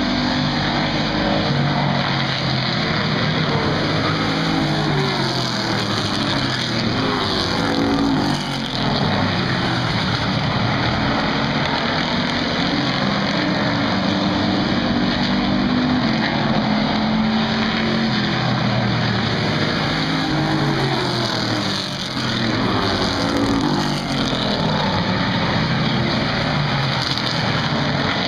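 Street stock race cars' engines at racing speed on a short oval, a loud continuous drone whose pitch rises and falls as the cars lap the track, with brief dips twice.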